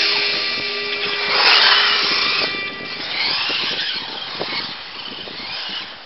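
Electric RC short-course truck's motor and drivetrain whining, the pitch dropping and climbing as it changes speed, fading as the truck drives away across the pavement.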